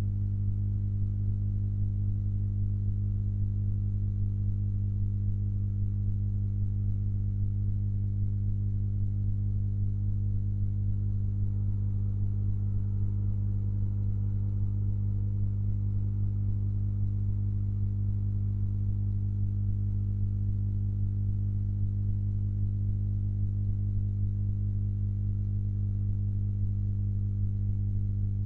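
Steady electrical mains hum: one low, unchanging drone with a stack of higher overtones above it.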